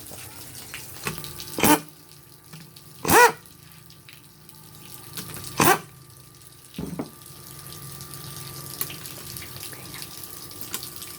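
Hand tools working the three rocker-arm bolts off a Honda TMX 155 cylinder head: three short, loud, sharp creaks a second or two apart, the middle one a brief squeal, then a smaller knock, over a faint steady hum.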